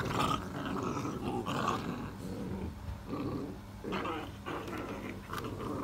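XL American Bully puppies growling while they play-fight, a run of short rough growls that keep breaking off and starting again.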